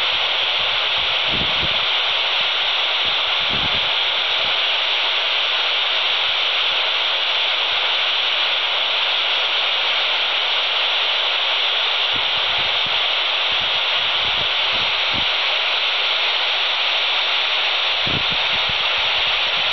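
Quansheng TG-UV2 handheld radio's speaker giving a steady FM static hiss on 145.800 MHz, with the squelch open and no station coming through.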